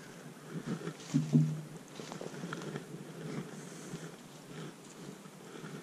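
Footsteps crunching through dry oak leaves and pine straw, an irregular run of rustles and crackles, loudest about a second in.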